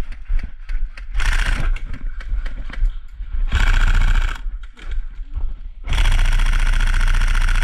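Tokyo Marui SCAR-L electric airsoft rifle firing full-auto: a short burst about a second in, a longer one around three and a half seconds, and a long, sustained burst from about six seconds on. Scattered clicks and knocks come between the bursts.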